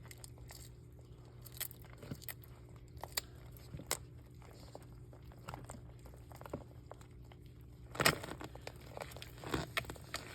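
Bearded dragon chewing a patent leather beetle: irregular sharp crunches of the beetle's hard shell, with a louder run of crunching about eight seconds in.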